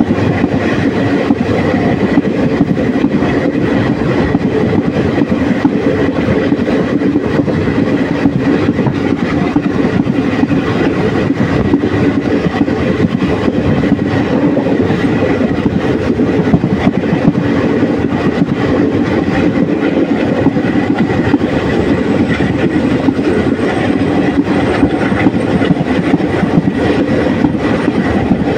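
Express passenger train running at speed, heard from a coach window: a loud, steady rush of wheels on the track with a dense, continuous rattle.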